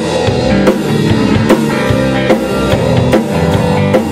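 Rock band playing an instrumental passage live: drum kit with kick and snare, electric bass and distorted electric guitar, with strong drum hits falling regularly about every 0.8 seconds.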